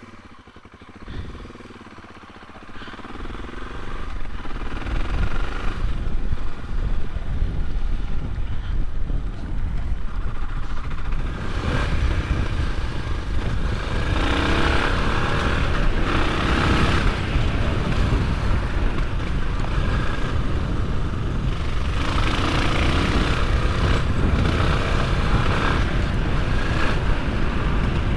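Suzuki DR650 single-cylinder four-stroke motorcycle engine, quiet for the first few seconds and then pulling away and running at riding speed, the sound growing much louder and staying loud as the bike gets under way.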